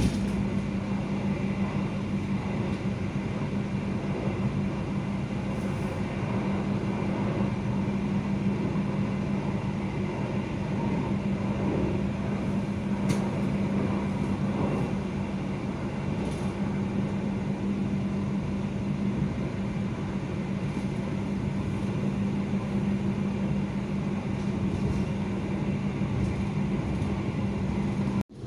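KA Maharani passenger train running, a steady rumble with a constant hum and a few faint knocks. The sound breaks off abruptly near the end.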